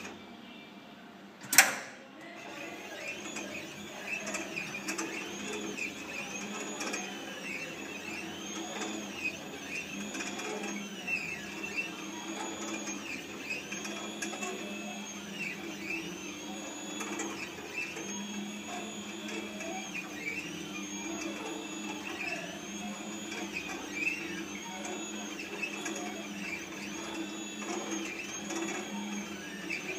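Sugar painting machine's drive motors whining as the head traces a syrup drawing, the pitch rising and falling in repeated arcs every second or two over a steady low hum. A single sharp click about one and a half seconds in.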